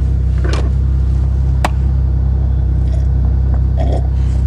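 Buick 3.8-litre V6 idling steadily after a cold start, heard from inside the cabin, running smoothly. A sharp click comes about a second and a half in.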